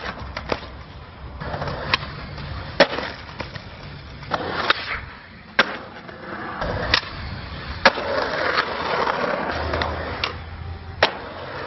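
Skateboard riding on concrete: wheels rolling steadily, broken by about eight sharp clacks of the board popping and landing, with a louder stretch of rolling near the end.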